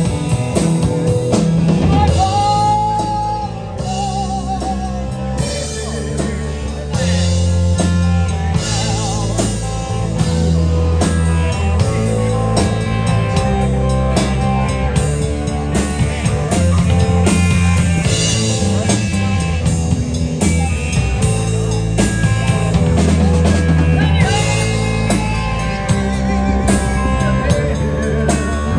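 Live rock band playing: electric guitars, bass and a drum kit, with a bass line moving between held low notes under steady cymbal and drum hits.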